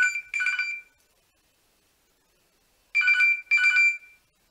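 Smartphone ringing with an old-style telephone-bell ringtone in pairs of short rings: two rings, a pause of about two seconds, then two more.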